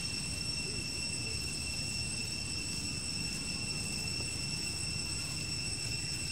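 Steady high-pitched insect drone of several even tones held without change, over a low rumble.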